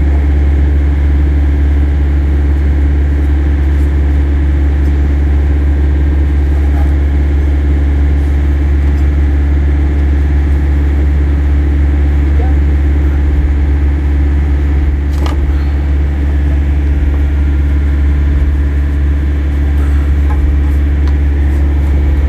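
An engine idling steadily with a deep, unchanging hum, with one sharp click about fifteen seconds in.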